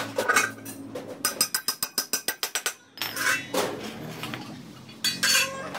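Metal clicking and clanking from a steel bar levered against square steel tubing pressed on a small tyre, with a quick run of about eight ticks a second and then two louder rattles.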